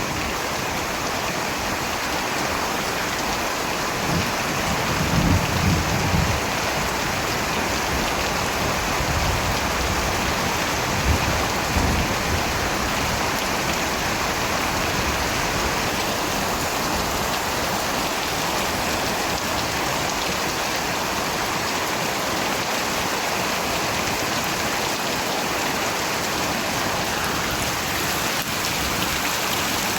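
Steady rain falling and pattering on surfaces, with brief low rumbles about five and eleven seconds in.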